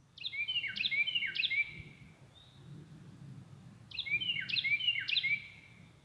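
Carolina wren singing two songs a couple of seconds apart, each of three quick repeated phrases, over a faint low background rumble.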